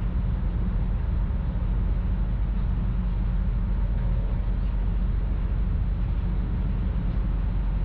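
Steady low drone of a passenger ferry's engine heard on board while under way, a deep hum with a wash of noise over it that stays even throughout.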